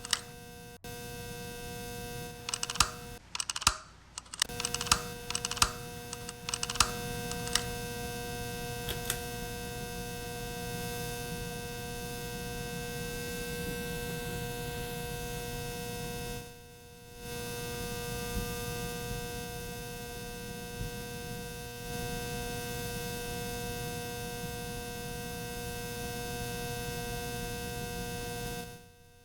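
Ceiling fan running with a steady electrical hum of several fixed tones, with irregular clicks over the first several seconds. The hum dips briefly about four seconds in and again around seventeen seconds.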